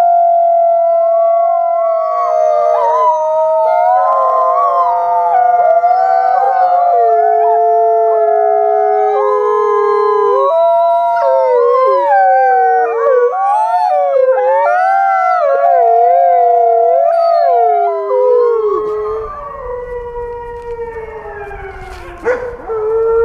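A pack of wolves howling in chorus, several voices overlapping, each holding long notes and sliding up and down in pitch. Near the end the chorus thins to one or two howls over a low rumbling noise, with a brief sharp sound shortly before the end.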